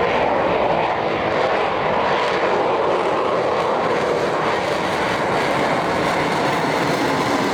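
Jet fighter engine noise, a steady loud rushing sound that holds even throughout.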